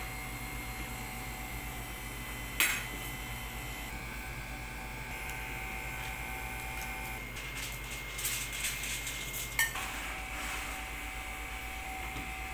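Foil lasagna tray handled and set onto a wire oven rack: light metallic clatter and clicks near the end, over a steady low hum. A single knock sounds about two and a half seconds in.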